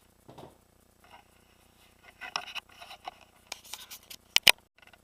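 Hands handling tools and parts: scattered rustles and scrapes, then two sharp clicks in quick succession near the end.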